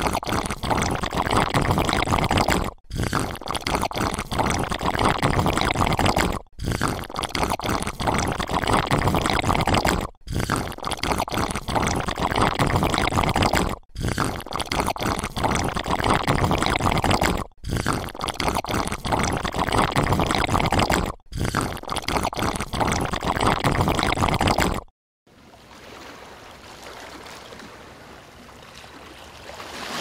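Water rushing and splashing down a shallow rocky stream cascade. The recording repeats in a loop, with a brief dropout about every four seconds. About 25 seconds in it falls away to a faint hiss.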